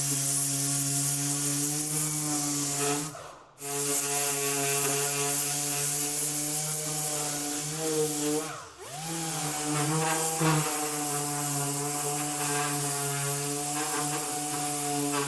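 Random orbital sander running steadily while sanding a 3D-printed ABS body panel flat. Its motor cuts out for a moment about three seconds in, and its pitch sags and comes back up near the nine-second mark.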